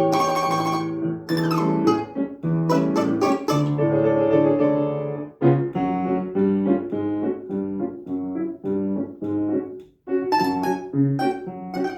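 A plucked string instrument and piano playing a lively children's piece in quick separate notes, breaking off briefly about ten seconds in before the playing resumes.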